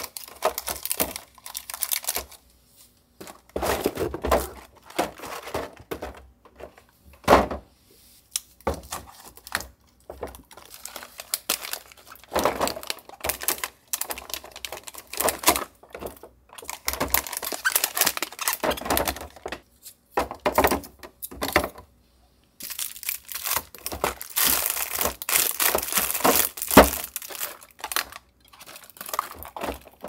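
Plastic packaging crinkling and rustling in irregular bursts as frozen-food items are handled and sorted, with a few sharper knocks of containers being set down.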